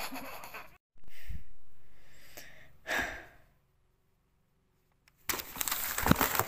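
Tissue paper and a cardboard shoebox crinkling and rustling as they are handled, with many small crackles, starting suddenly about five seconds in. Before that there are soft breathy rushes of noise that fade out, then a second or so of silence.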